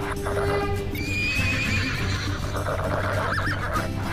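A horse whinnying: one high, wavering call about a second in, over a steady low hum.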